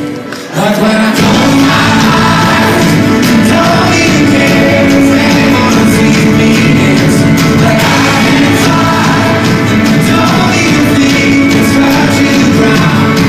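Live band playing a pop song with a lead vocal over acoustic guitar, keyboard and drums, heard from the audience in a large hall. After a brief drop in the first half second the music is loud and continuous.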